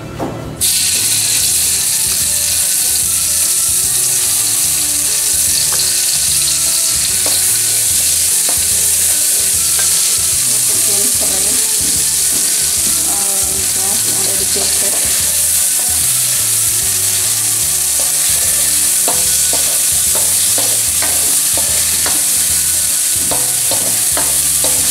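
Wet ground spice paste (shallot, garlic, turmeric and candlenut) hitting hot oil in a wok: it starts sizzling loudly about half a second in and sizzles steadily as it fries. A plastic spatula stirring it adds scattered scrapes and taps against the wok.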